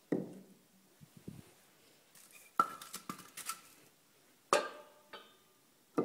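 Split firewood logs knocking and clacking against each other as they are picked up and handled: a series of sharp wooden knocks, some with a short ringing tone, the loudest about four and a half seconds in.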